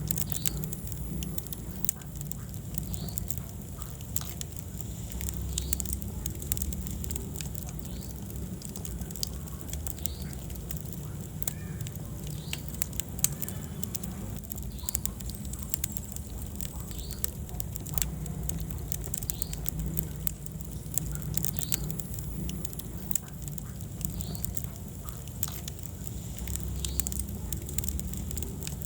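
Wood fire burning in a fireplace: many irregular sharp crackles and pops over a steady low rumble of the flames.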